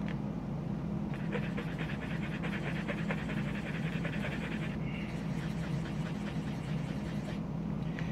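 A small plastic model-kit part rubbed quickly back and forth on a fingernail buffing block, scuffing its surface so primer will hold. The fast run of scratchy strokes starts about a second in and stops about five seconds in, over a steady low hum.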